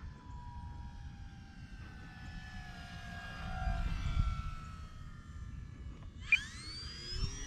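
Electric motor and propeller of an E-flite Air Tractor 1.5m RC plane whining at low throttle on a landing approach, its pitch slowly falling as it passes. About six seconds in the motor is throttled up for a go-around and the whine rises sharply. A low rumble of wind noise on the microphone runs underneath.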